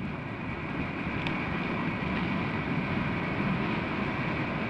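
SNCF 060 DB diesel locomotive running at idle: a steady rumble with a faint steady high tone over it.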